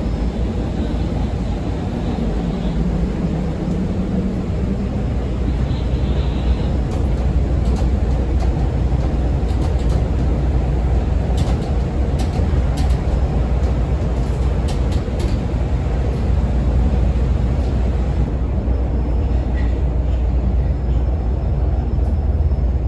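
A CTA 5000-series rapid transit car heard from inside, running along the track with a steady low rumble of wheels on rail and scattered clicks in the middle stretch. Near the end the upper hiss thins as the train slows into a station.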